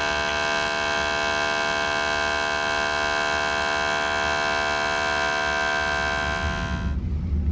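Fuel injector tester pulsing four Honda K20A fuel injectors into its measuring cylinders during a flow test. It makes a steady electric buzz that cuts off sharply about seven seconds in.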